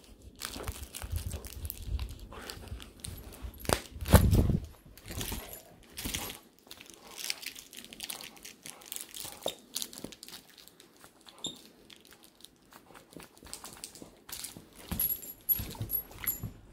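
A pitbull mix puppy mouthing and tugging a plush duck squeaker toy, making scattered crinkling and rustling clicks, with one loud thump about four seconds in. A few short, faint, high squeaks come near the end.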